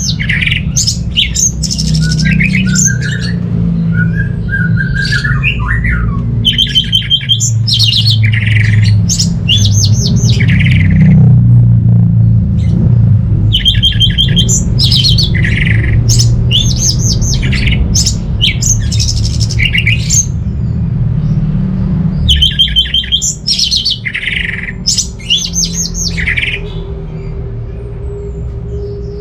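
Orange-headed thrush singing in repeated bouts of quick, high warbled phrases and rapid trills, over a steady low rumble.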